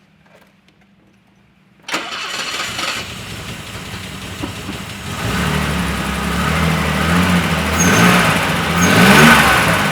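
A BMW 7 Series fuel-injected straight-six is cranked on the starter motor about two seconds in. It catches and runs, its revs rise briefly near the end, and it then settles into a steady idle.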